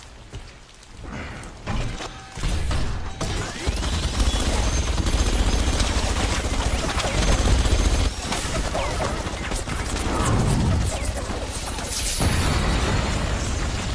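Movie fight-scene sound effects: after a quieter opening, a dense wash of heavy low rumble with many crashes and crackles sets in about two and a half seconds in and keeps going, shifting about two seconds before the end.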